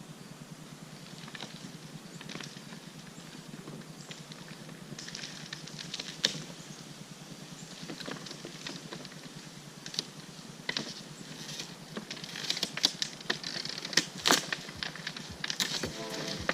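Steady low rumble of an idling excavator engine, with scattered sharp clicks and taps that come more often in the last few seconds.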